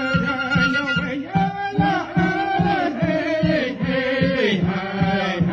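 Music: chanted vocals over a steady beat of about four pulses a second.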